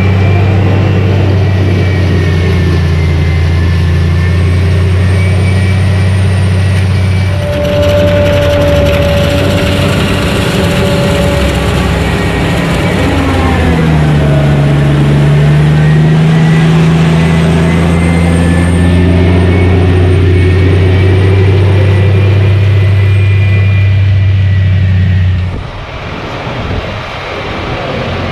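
Self-propelled John Deere forage harvester chopping maize: a steady, loud diesel drone with a faint high whine, shifting in pitch about halfway through. Near the end it drops away to quieter tractor engine noise.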